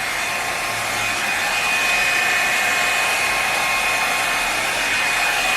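Revlon One-Step Hair Dryer and Volumizer hot-air brush running on its high setting while it dries hair. It makes a steady rush of air with a high, even whine.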